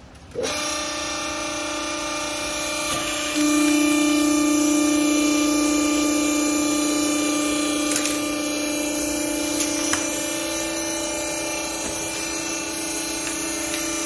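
Vertical hydraulic clothing baler's hydraulic pump running with a steady whine. It starts suddenly about half a second in and gets louder about three seconds in, with a couple of faint clicks later on.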